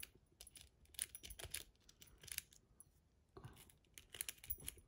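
Faint, irregular metallic clicking and scraping of a steel rake lockpick worked in a padlock's keyway against the pins under tension, with a brief lull in the middle.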